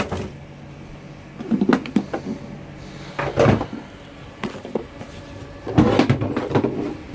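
Plastic parts of a Milwaukee M18 wet/dry vacuum being handled and set down during disassembly: three short spells of clattering knocks, about a second and a half in, around three and a half seconds, and around six seconds.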